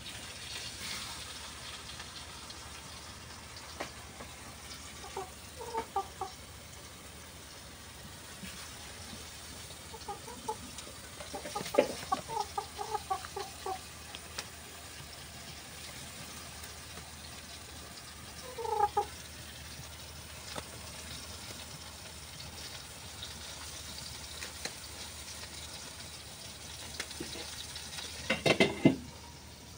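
Broiler chicken clucking in short groups of low calls: a few about five seconds in, a run around ten to thirteen seconds, a couple near nineteen seconds, and a louder cluster near the end.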